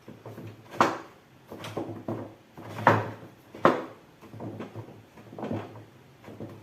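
A series of irregular knocks and clunks, about eight over several seconds, as a lift motor is handled and set into the leg of a podium.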